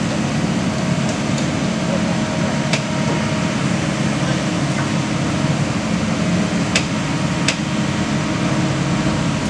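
Kobelco SK200 excavator's diesel engine running steadily, with a few sharp clicks.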